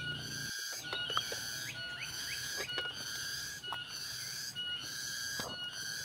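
Dense chorus of forest insects: a high buzzing that swells and dips about once a second, with steady high whistling tones and short sliding notes woven through it. A few sharp snaps and rustles of vegetation cut in as someone pushes through the undergrowth.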